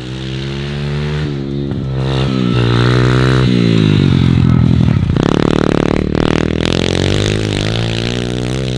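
Small pit bike engine revving, its pitch climbing, dropping away and climbing again, loudest around the middle.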